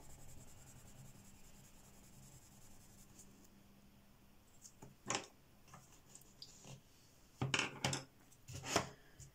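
A few light clicks and knocks of wooden coloured pencils being handled: one about five seconds in, then several more close together near the end.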